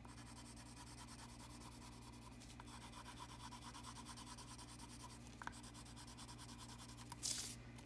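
Coloured pencil scratching on paper in quick back-and-forth strokes as an area is shaded in, faint and steady, with a short louder hiss near the end.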